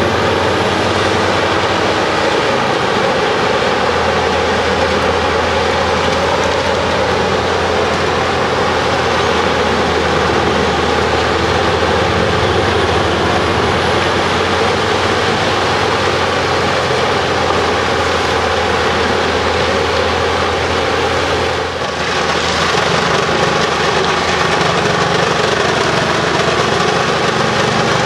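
Truck-mounted Bruks 1006 ST wood chipper running on its separate 720 hp engine, a loud, steady mechanical din with a short drop in level about twenty-two seconds in.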